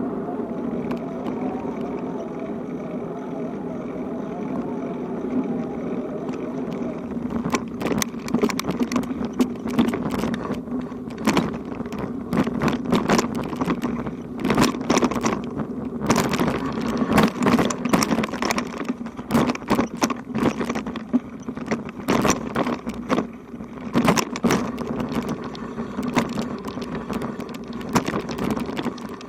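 A ride on a bicycle: a steady hum, then from about seven seconds in a dense, irregular rattle of clicks and knocks, as the bike and its load shake over a rough surface.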